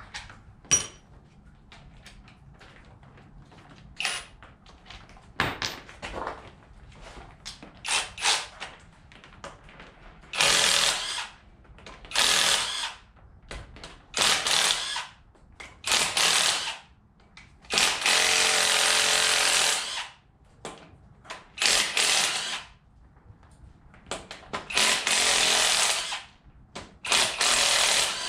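Impact wrench run in repeated bursts of about a second, one lasting about two seconds, as bolts are broken loose on a truck engine being torn down. The first ten seconds hold lighter clicks and knocks of tools and parts.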